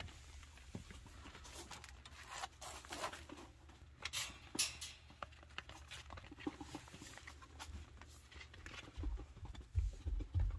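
Baby chinchillas scampering and scuffling, small feet pattering and scratching on the floor in irregular light rustles and clicks, with a few low thumps near the end.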